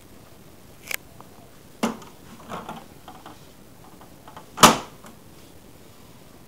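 A few separate knocks and clicks over faint room hiss: one near one second, a duller knock just before two seconds, softer clicks after it, and the loudest knock about four and a half seconds in.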